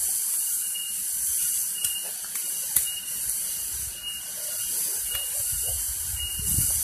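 Steady hiss of running water in a muddy stream-fed pond, with a few short splashes and knocks.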